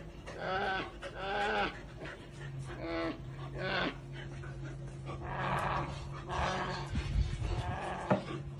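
An animal giving repeated short, bleating whines: several pitched calls in the first four seconds, then breathier calls about five and six and a half seconds in, over a steady low hum.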